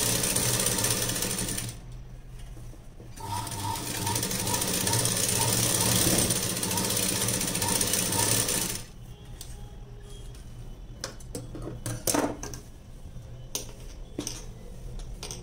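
Sewing machine stitching in two runs: one that stops about two seconds in, and a longer one from about three seconds to nearly nine seconds, with a faint regular tick as it runs. After it stops, a few scattered clicks.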